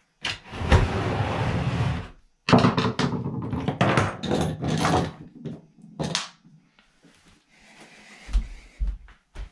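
A plastic bucket scraping and knocking against the floor of a bathtub as it is moved and lifted out, with clattering handling noise for several seconds. Near the end come soft, evenly spaced footsteps.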